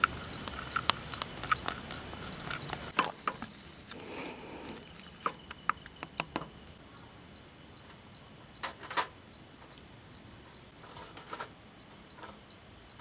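Scattered light clicks and knocks of objects being handled, most of them in the first half and a sharper pair about nine seconds in, over a faint, steady high-pitched insect drone.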